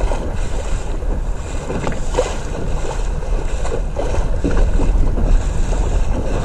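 Wind buffeting the microphone over water splashing and rushing along the hull of a Sunfish sailing dinghy under way, with scattered splashes.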